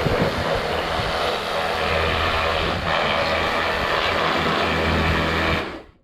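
Pressure washer running steadily, its motor a constant hum under a hiss of spray, cut off abruptly near the end.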